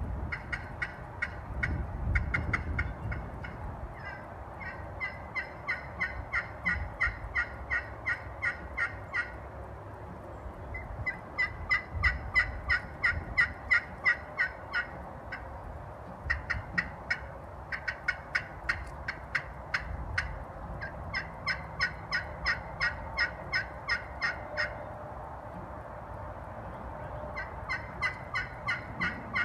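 Glass pot turkey call with a walnut pot, played with a two-piece wooden striker: runs of turkey yelps, about three notes a second, in several sequences a few seconds long with short pauses between.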